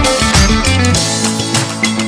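Upbeat background music led by guitar, with plucked and strummed notes over a steady beat.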